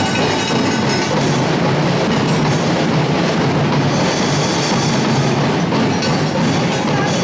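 Percussion ensemble playing dense, steady drumming for an Ati-Atihan street dance.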